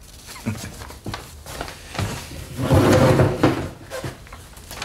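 Handling and movement noises: paper rustling and a man settling into a seat, with a louder creak about three seconds in.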